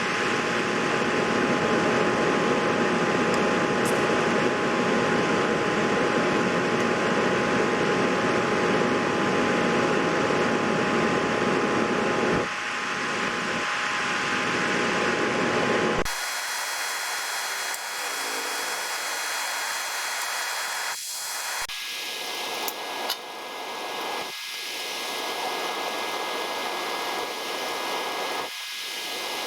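Steady hiss of background noise with a few faint steady tones, like a fan running. Its character changes abruptly about halfway through and again a few seconds later.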